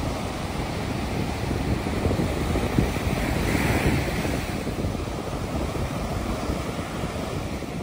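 Surf from a rough sea breaking and washing up a sandy beach, a steady wash with one wave breaking a little louder about halfway through.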